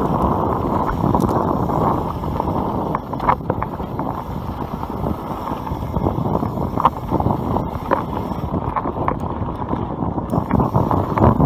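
YT Capra mountain bike riding fast down a dirt and gravel trail: wind rushes over the camera microphone and the tyres run over the ground, with occasional sharp knocks as the bike rattles over bumps.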